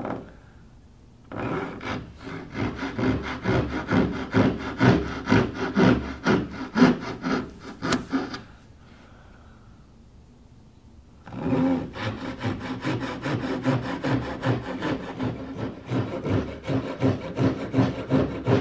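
Brass-backed backsaw cutting a kerf into a wooden panel by hand, in quick, even push-and-pull strokes, cutting along the layout lines that mark the tongue of a breadboard end. It saws in two bouts, stopping for about three seconds in the middle and then starting again.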